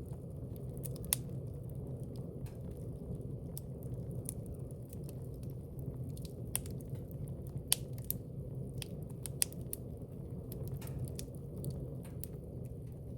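Wood fire burning in a fireplace: a steady low rush of flame with irregular sharp crackles and pops, and a few louder snaps.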